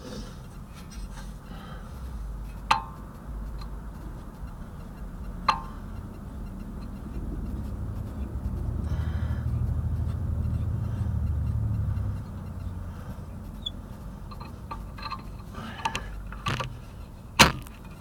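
A few sharp metallic clinks, each ringing briefly, the loudest near the end. A low rumble swells for several seconds in the middle.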